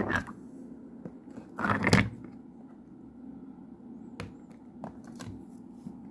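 Stone amethyst geode halves being handled in a plastic tub: a sharp knock at the start, a louder rough knock-and-scrape about two seconds in, then a few light clicks, over a low steady hum.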